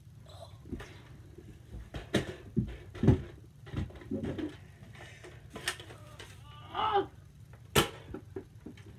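Several sharp knocks and clacks a second or more apart, the sharpest near the end, with a few short wordless vocal sounds from children in between.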